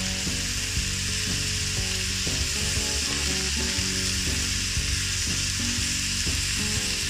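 Minced mutton, onion and potato sizzling in hot oil in a pan, stirred with a wooden spatula. Soft background music plays underneath.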